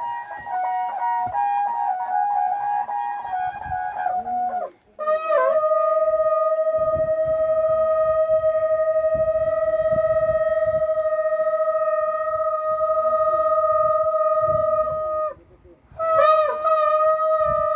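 Wind instruments playing long held notes. At first two of them sound together at slightly different pitches and change note a few times. After a short break a single steady note is held for about ten seconds, and after another brief pause a fresh note starts, each new note sliding briefly into pitch.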